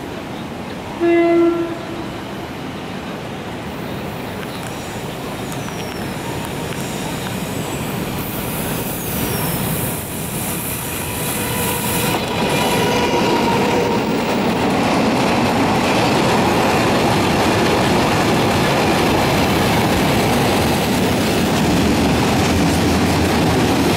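Taiwan Railway E300-class electric locomotive E326 gives one short horn blast about a second in. The train then approaches and runs past with a rising rumble and clatter of wheels on rails, loudest from about halfway through as the locomotive and its freight wagons roll by.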